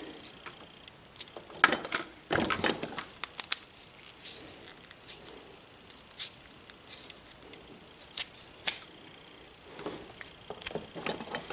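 Irregular clicks, taps and scrapes of small metal parts handled by hand as a wire is worked into a small connector terminal. The clicks come in a cluster in the first few seconds, twice more a little past the middle, and again near the end.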